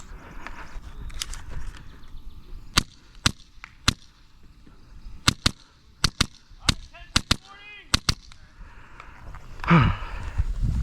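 Airsoft guns firing about a dozen single shots, sharp snaps spaced irregularly from about three seconds in, with a brief high chirping in the middle and a voice near the end.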